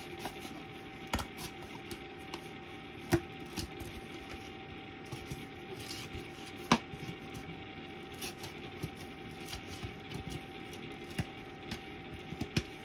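Scissors cutting cardboard, a few sharp snips and clicks a second or more apart, over a faint steady tone in the background.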